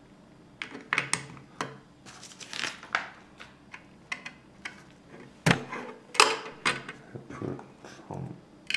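LEGO bricks clicking and clattering as plastic pieces are pressed onto the model and picked out of the loose parts by hand: a run of sharp plastic clicks and rattles, loudest about five and a half and six seconds in.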